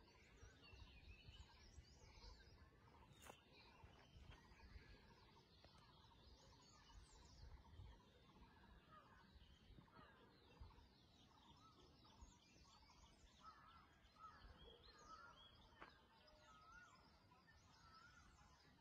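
Faint birdsong: many small chirps and trills from several birds, over near silence.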